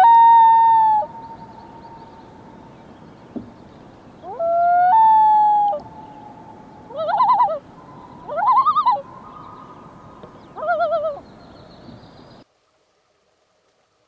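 Common loon calling: two long wailing notes that each slide up and then hold, then three short quavering calls.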